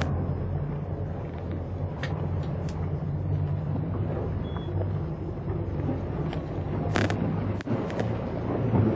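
A boat's engine running steadily with a low hum, under wind and water noise, with a few short clicks and knocks.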